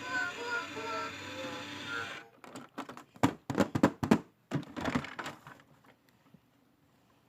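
A mini toy claw machine's electronic tune plays and cuts off suddenly about two seconds in. A few seconds of plastic clicks and knocks follow, then quiet.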